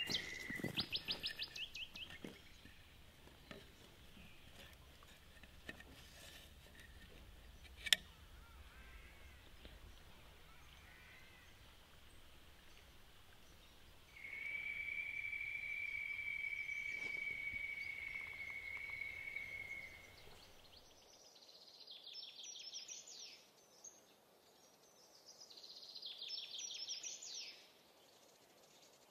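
Quiet bush ambience: a sharp click about eight seconds in, a steady high whistling tone lasting about six seconds midway, then two short bursts of rapid bird chirping near the end.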